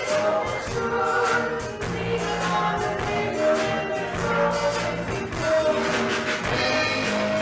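Two women singing a worship song together, accompanied by electric guitar.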